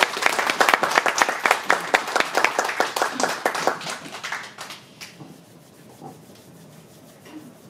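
Audience applauding, a dense patter of many hands clapping that dies away about four to five seconds in.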